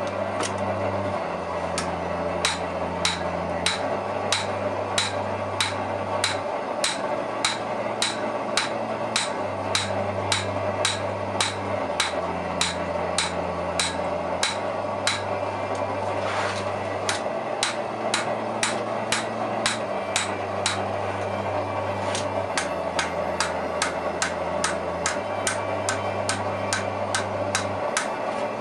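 Hand hammer striking a hot steel sword blade on an anvil in a steady rhythm of about two blows a second, many of them with a short metallic ring, as the blade's bevels are forged.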